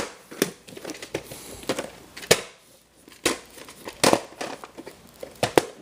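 A VHS tape and its plastic case being handled: irregular sharp plastic clicks and knocks with light rustling and crinkling between them.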